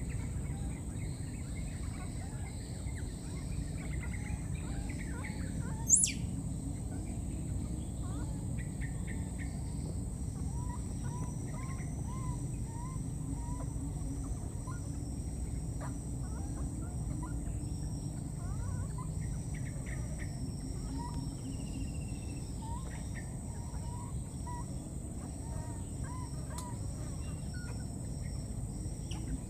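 Outdoor ambience over wet grassland: a steady low rumble and a high steady whine, with birds calling. A single sharp, very high squeak about six seconds in, then a long run of short, evenly repeated chirps through the middle.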